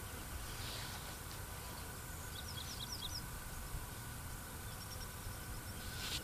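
Outdoor ambience with a wild bird singing: a quick run of about six short, high, falling chirps about two and a half seconds in, then a fainter series near five seconds. Under it runs a steady low rumble and hiss.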